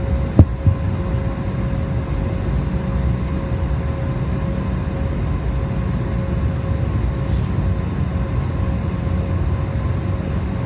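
Steady roar of an Embraer 190's jet engines and airflow heard inside the cabin, with an even hum running through it. A sharp knock about half a second in, with a smaller one just after.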